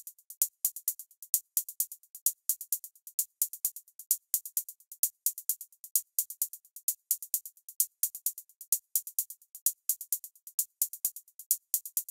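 Electronic background music stripped down to a fast, even beat of crisp, high ticking percussion, with no bass or melody.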